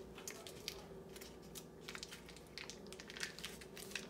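Packaging rustling and crinkling as it is handled, a string of irregular soft crackles.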